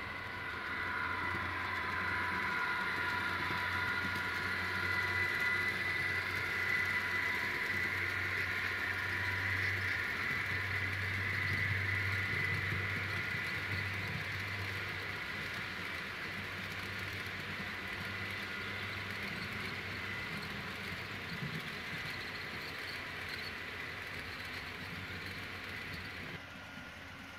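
Model Union Pacific streamliner passenger train running past: a steady whir of wheels and motor with diesel engine sound from its onboard sound decoder. It grows louder as the train approaches and fades as it moves away.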